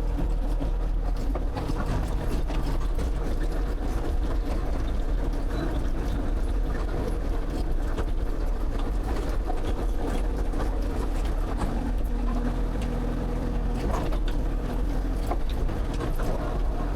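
Excavator's diesel engine running steadily while it digs, with a low, even drone.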